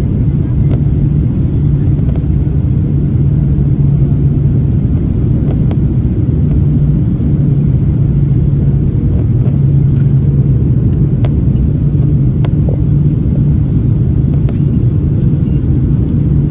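Airliner cabin noise during landing: a loud, steady low rumble with a constant low hum, and a few faint clicks now and then.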